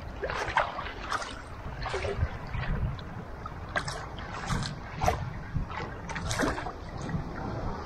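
Sea water splashing and lapping against the plastic hull of a Feel Free Nomad sit-on-top kayak riding a light swell, in irregular splashes every half second to a second. A low wind rumble on the microphone runs underneath.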